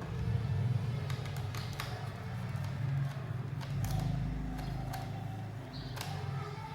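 Scattered light clicks and taps as the plastic case of a Lenovo G40 laptop is worked open, over a steady low hum.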